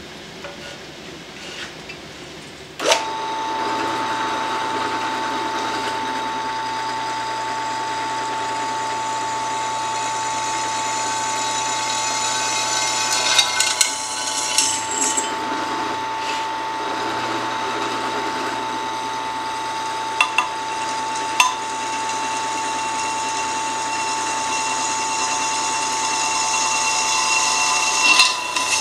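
Drill press switched on with a click about three seconds in, its motor then running with a steady whine while the twist bit drills into a thin metal plate held in a vise. There are a few sharp clicks and scrapes from the cutting, around the middle and near the end.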